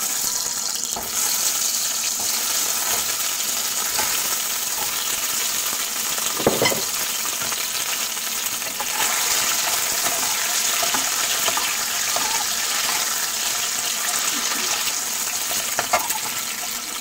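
Peeled hard-boiled eggs frying in hot oil, a steady dense sizzle. The sizzle comes from moisture still on the freshly peeled eggs meeting the oil. Near the end there is a short knock as a metal ladle goes into the pan.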